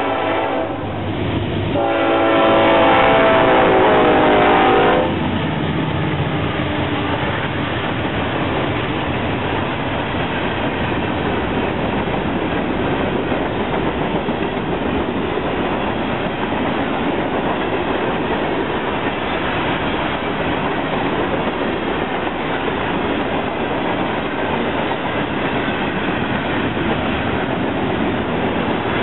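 Horn of a GE C40-9W freight locomotive with a mellow tone, sounding a blast that ends under a second in and then a louder, longer blast from about two to five seconds in. The train then rolls past, a string of empty ballast cars running steadily over the rails with a clickety-clack.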